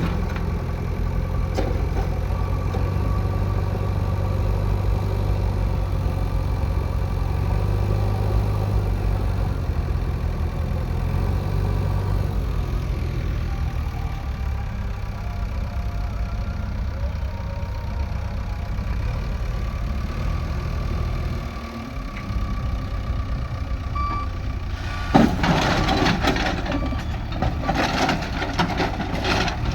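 JCB 3DX backhoe loader's diesel engine running steadily. It dips briefly about two-thirds of the way through, and in the last few seconds a rough clattering noise comes in over it.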